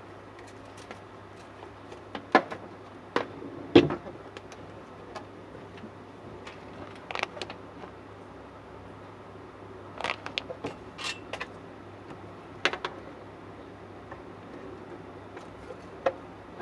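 Irregular sharp knocks and clicks of hand work, such as tools and fittings being handled, over a steady low hum. The loudest knocks come a few seconds in, with another cluster past the middle.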